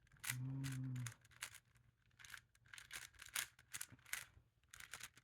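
Rubik's cube faces being turned by hand: a run of quick, irregular plastic clicks and scrapes. Near the start, a brief low steady hum lasting under a second is the loudest sound.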